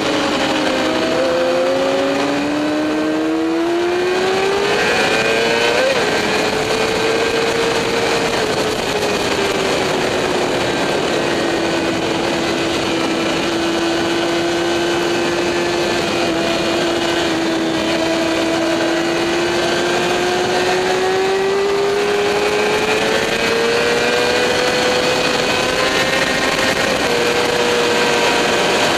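Motorcycle engine at speed on a racetrack lap, its pitch falling and rising as it brakes and accelerates. There is a quick jump in pitch about six seconds in, a long steady stretch in the middle, and a climb near the end, all over a steady rushing noise.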